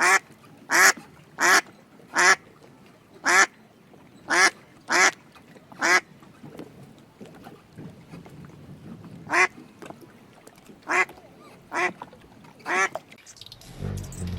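An animal's short calls, repeated about a dozen times, each a fraction of a second long, with a pause of a few seconds in the middle.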